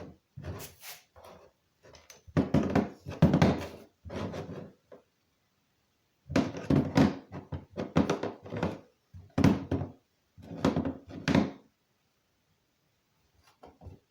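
A series of thunks, knocks and rustles from small objects and packaging being handled and set down on a hard surface, in bunches with short pauses between them.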